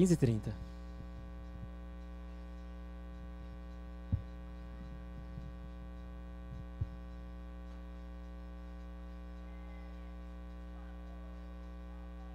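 Steady electrical mains hum with many harmonics, carried on the commentary audio feed, with two brief low thumps about four and seven seconds in.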